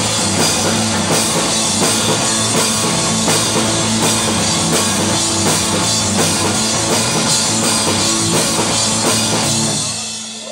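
Rock band playing loud and live: a drum kit pounding steadily under electric guitar and bass. Near the end the band stops and one low note rings on.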